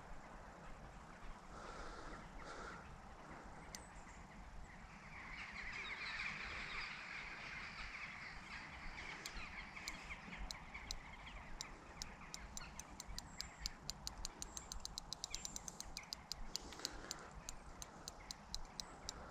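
Fixed-spool reel ticking while a hooked carp is played on a bent rod. Sharp, even clicks begin about halfway through, come faster a few seconds later, then slow again near the end.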